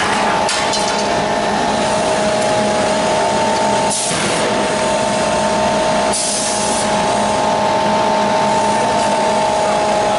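Steady, loud machinery hum with several steady whining tones from a CNC forging hammer and its drive running in a forge shop, with a short hiss about four seconds in and a longer high hiss a little after six seconds.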